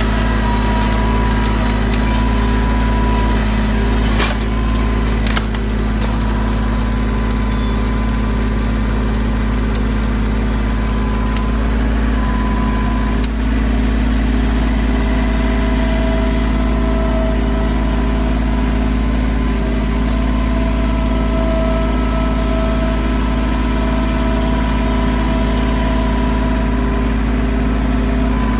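Mahindra 1626 compact tractor's diesel engine running steadily while the loader grapple picks up and lifts brush, with a couple of sharp knocks about four and five seconds in.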